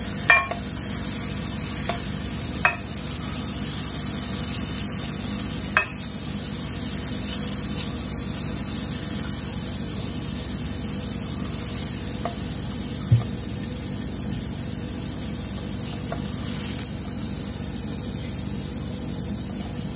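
Cauliflower and scrambled egg sizzling steadily in a hot non-stick frying pan while a spatula scoops them out, with a few sharp knocks and scrapes of the spatula against the pan.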